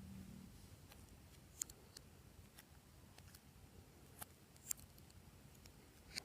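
Faint sticky clicks and pops of glossy slime being worked by hand, about half a dozen sharp little snaps scattered through a quiet stretch.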